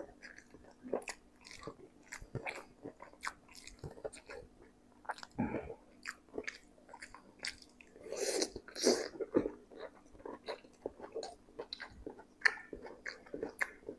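Close-miked chewing of spicy instant noodles: wet mouth smacks and clicks. A louder, longer noisy stretch comes about eight seconds in.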